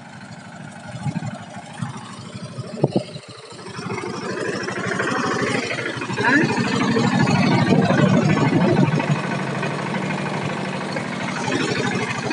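Mahindra Yuvraj 215 NXT mini tractor's single-cylinder diesel engine running with a rapid steady chug, growing louder about four seconds in. A couple of short knocks come near three seconds in.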